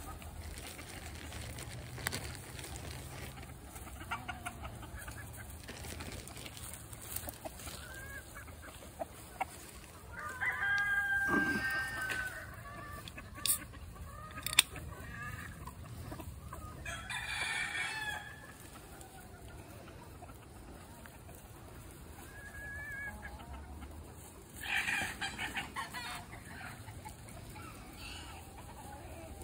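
A flock of chickens clucking as they forage and peck at bread, with a rooster crowing; the loudest call comes about eleven seconds in, with more calls later. Two sharp clicks stand out around the middle.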